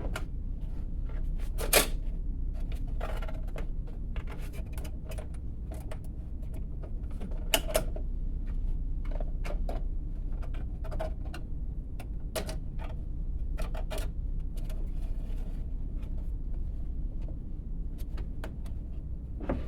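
Scattered clicks and light metallic taps as a bandsaw blade is worked back onto the pulleys and between the guide rollers of a Hercules 5-inch deep-cut portable bandsaw. Two sharper clicks stand out, one about two seconds in and one about seven seconds in, over a steady low hum.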